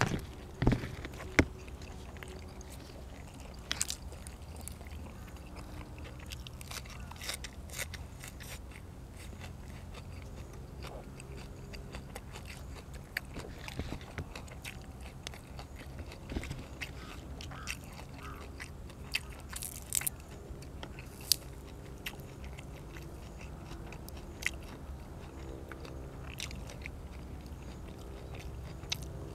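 A person chewing and biting food close to the microphone, with occasional crunches and sharp clicks scattered throughout, over a steady low hum.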